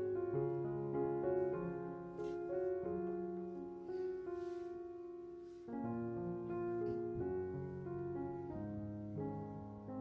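Background piano music, notes changing every half second or so.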